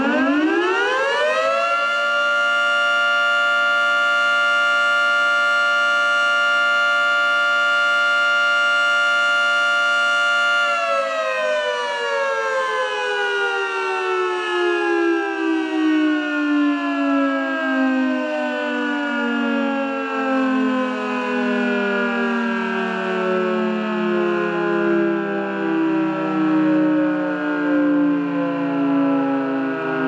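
Federal Signal 3T22 electromechanical siren sounding its noon blast: it winds up to a steady multi-tone chord within about two seconds, holds it for about nine seconds, then winds down slowly, the pitch falling and the loudness wavering. Its bottom damper plate has been removed, so it sounds at full volume.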